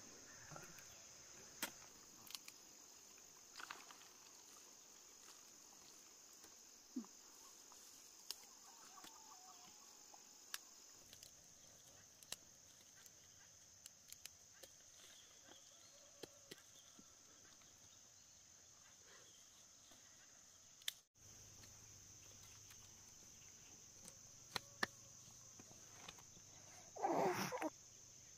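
Faint, steady chirring of insects, with scattered small clicks and taps. A short, louder sound comes near the end.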